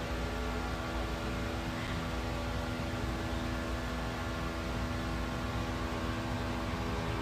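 Steady hum: several held tones over a soft hiss and low rumble, unchanging throughout.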